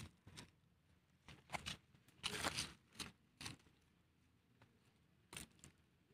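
Dry leaf litter crunching and rustling in short bursts, with a longer, louder rustle about two and a half seconds in, then only a few faint crackles.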